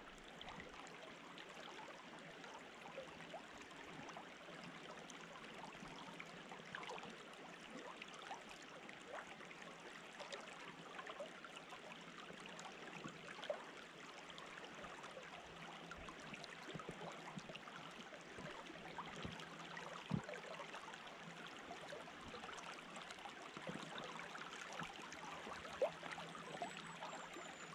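Small river flowing over a shallow current: a faint, even rush of water with small clicks, broken by a few short knocks now and then.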